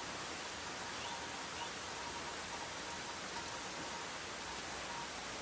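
Steady rain falling, an even hiss of a rainstorm.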